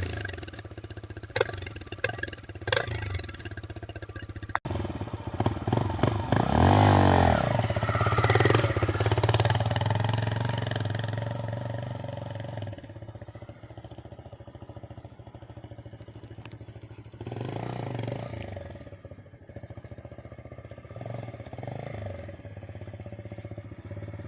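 TVS Raider 125 single-cylinder motorcycle engine running through an aftermarket silencer, with a few sharp cracks in the first seconds. It revs up and back down about seven seconds in, then idles, with a smaller blip near the end.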